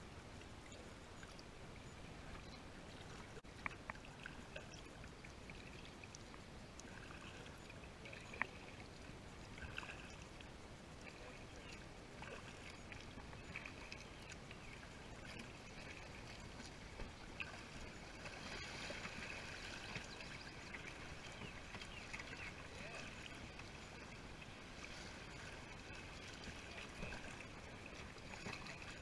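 Faint rippling and babbling of creek water around a drifting kayak, a little louder past halfway, with a few light knocks.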